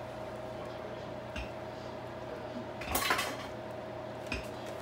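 Metal cookware clinking in a kitchen: a light clink about a second and a half in, a louder clatter of metal about three seconds in, and another clink near the end, over a steady hum.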